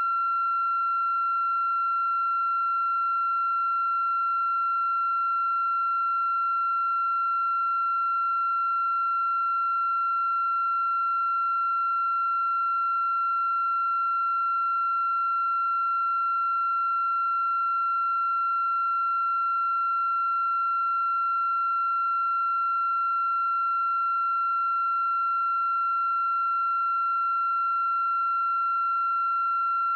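A steady, unchanging high-pitched electronic tone with faint overtones above it.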